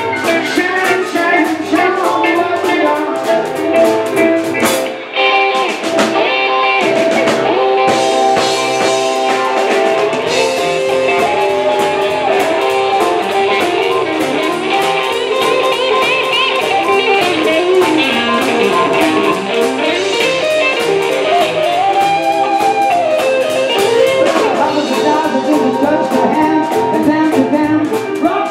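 Live band playing blues-style rock and roll: electric guitar, upright double bass and drum kit, with a voice singing. The music drops back briefly about five seconds in, then carries on.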